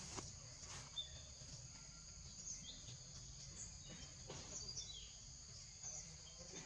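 Faint outdoor ambience: a steady high-pitched insect drone with short bird chirps scattered through it, over a low background rumble.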